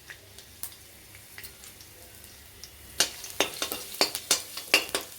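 Garlic frying in hot oil in a kadai with a low sizzle; from about three seconds in, a spatula stirs it, clicking and scraping sharply against the pan.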